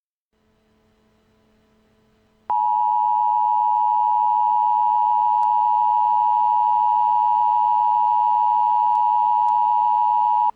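Emergency Alert System attention tone: a loud, steady electronic alarm tone that starts abruptly about two and a half seconds in and holds unchanged for about eight seconds.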